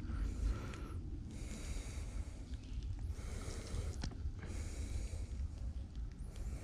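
A person breathing heavily and audibly through the nose close to the microphone, in a series of airy breaths about a second long each, over a low handling rumble.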